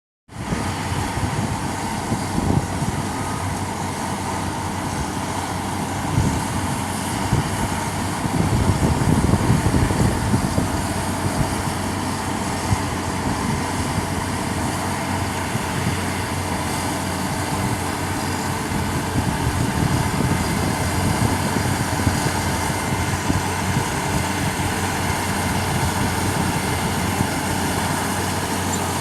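Caterpillar D6H LGP track bulldozer's diesel engine running steadily, getting louder for a few seconds about a third of the way in.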